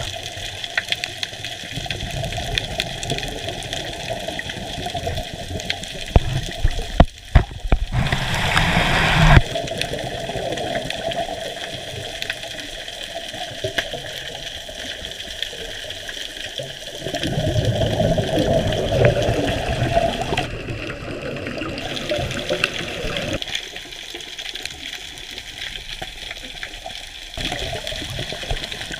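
Water noise picked up underwater: a steady rushing hiss, with a few sharp knocks about six seconds in, then a loud surge of water sound, and a second, longer surge around seventeen seconds in.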